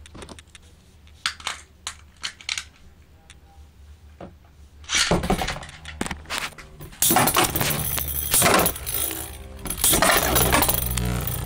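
A few sharp clicks, then two metal-wheeled Beyblade spinning tops spinning and clashing in a plastic stadium: a dense metallic clatter starting about five seconds in, louder and more continuous from about seven seconds.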